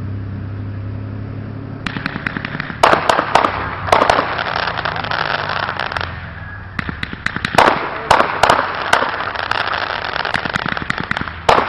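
Fireworks crackling and popping. A dense run of rapid small pops starts about two seconds in, with several louder bangs and a short lull in the middle.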